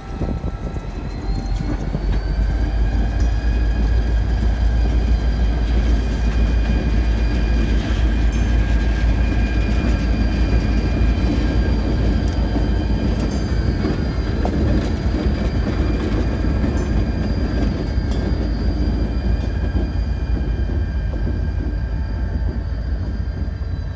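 Diesel locomotives rumbling slowly through a grade crossing, a heavy low engine rumble with a steady high-pitched squeal over it.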